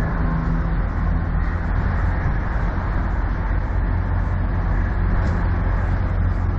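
Diesel semi-truck engine idling: a steady low rumble.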